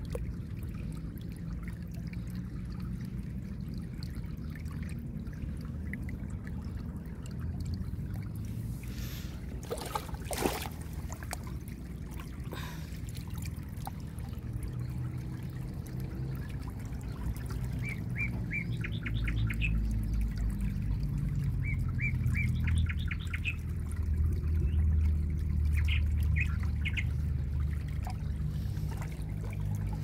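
Shallow creek water trickling over pebbles. A bird calls in short rapid series of high chirps in the second half, and there is one sharp knock about ten seconds in.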